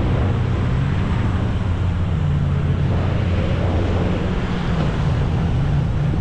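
Wind rushing over the microphone, with a steady low hum underneath: the tow boat's engine as the parasail is pulled in.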